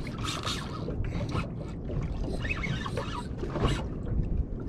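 Wind and small waves slapping against a small boat's hull, with scattered short clicks and a few brief squeaks from the rod and reel while a fish is being played.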